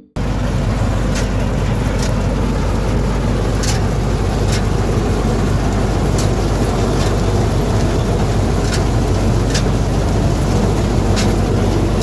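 Punni combine harvester running while it cuts soybean: a loud, steady engine and machinery drone, with sharp clicks coming in pairs about every two and a half seconds.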